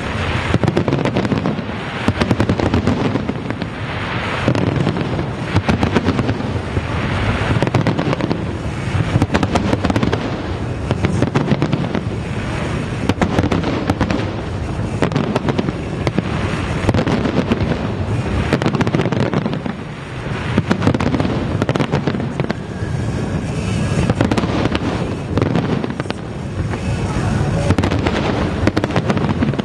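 Large aerial fireworks display: a dense, continuous barrage of overlapping shell bursts, bangs and crackling.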